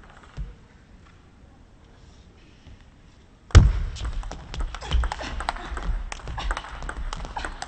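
Table tennis rally: a sudden loud thud about three and a half seconds in, then the ball clicking rapidly off rackets and table, after a few quiet seconds.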